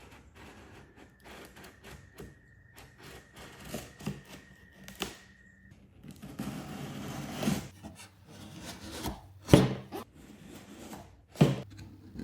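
A cardboard box being opened by hand: scraping, rubbing and rustling with scattered clicks, and two sharp knocks in the second half.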